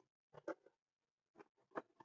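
Near silence, with two faint taps about half a second in and near the end: hands handling the Jeep Wrangler's plastic instrument-cluster bezel.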